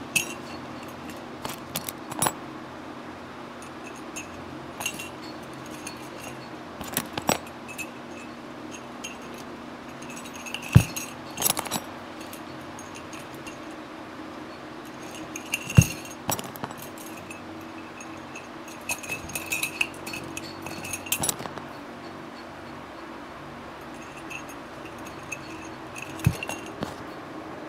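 Steel motorcycle wheel spokes jingling and clinking against each other and the hub, as they are threaded one by one into the hub flange during wheel lacing, with a few sharper metallic knocks.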